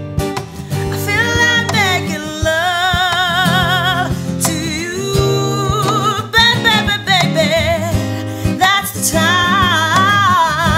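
A woman singing a soul song with wavering held notes and vibrato, accompanied by acoustic guitar.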